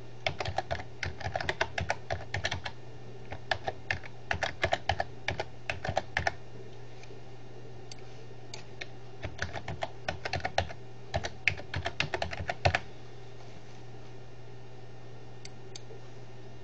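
Computer keyboard typing in quick runs of keystrokes, two runs split by a pause of about two seconds, over a steady low hum. Two faint clicks near the end.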